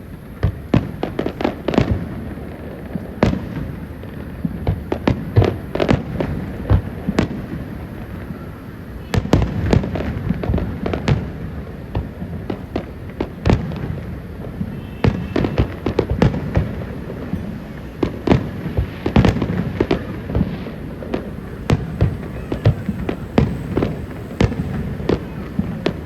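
Aerial fireworks display: shells bursting in a rapid, irregular string of bangs and crackles, many overlapping, growing denser and louder from about nine seconds in.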